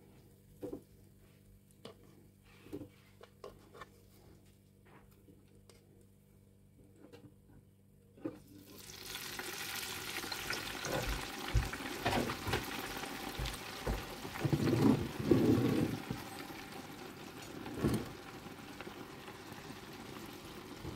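A few light clicks as sliced onion is handled. About eight seconds in, a basket of onion rings is lowered into an electric deep fryer's hot oil, setting off loud, steady sizzling with a few knocks. The oil foams up to the fryer's rim.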